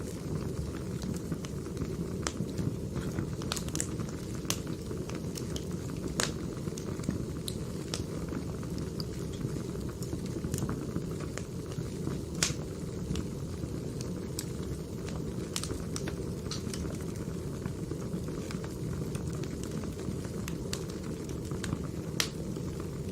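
Burning firewood: a steady low rush from the fire with scattered sharp crackles and pops from the logs.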